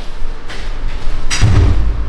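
A heavy door pushed open by its lever handle, with one loud thud about one and a half seconds in and a low rumble after it.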